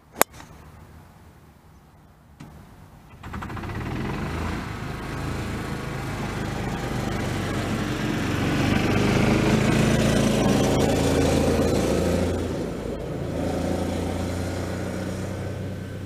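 A golf club strikes a ball once with a sharp crack just after the start. A few seconds later a motor vehicle's engine comes in, grows louder to a peak about ten seconds in, then fades.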